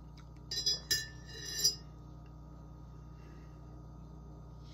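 A metal teaspoon clinking against a ceramic mug several times in the first two seconds, short bright ringing taps. A steady low hum continues underneath.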